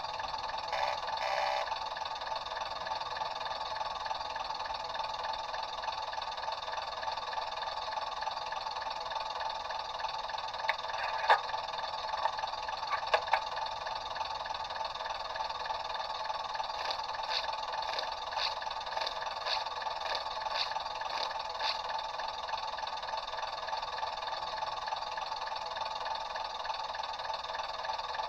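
Sound decoder in an OO-scale Bachmann Class 101 DMU model playing a steady diesel engine running sound through its small onboard speaker, thin with no bass. A few sharp clicks come about a third of the way in, and a run of light ticks follows a little past the middle.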